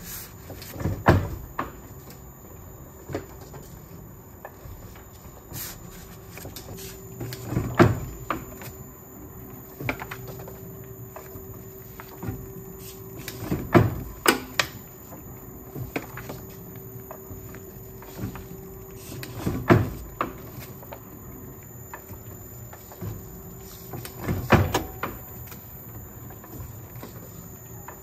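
Platen letterpress running as sheets are hand-fed, its platen closing with a loud clack about every six seconds, five times, with lighter mechanical clicks between. A faint steady hum joins about a quarter of the way in.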